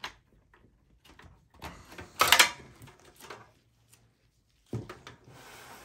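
Cables and plastic connectors being handled and unplugged inside a desktop PC's sheet-metal case: scattered clicks and rattles, the loudest cluster about two seconds in, with softer rustling near the end.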